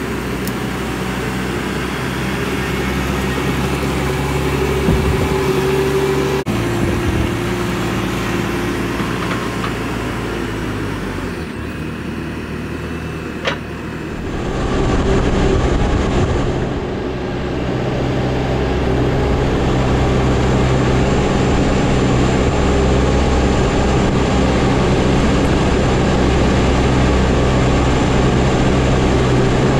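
Bobcat T650 compact track loader's diesel engine running at a steady speed, a little louder over the second half, with a single sharp click about halfway through.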